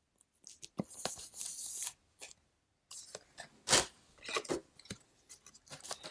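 Trading cards being handled and flipped through: a string of short rustles and sliding scrapes with a few light clicks, the loudest a sharp scrape a little past the middle.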